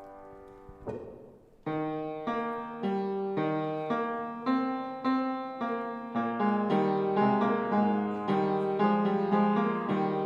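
Piano playing closing music: after a held chord dies away and a short pause, chords are struck about every half second, quickening after about six seconds.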